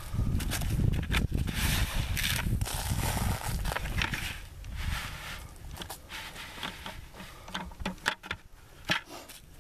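Hand tools and hands scraping and sifting soil over a bedded foothold trap, with scattered scrapes and sharp little clicks as the trap is covered. A low rumble runs through the first four seconds, then fades.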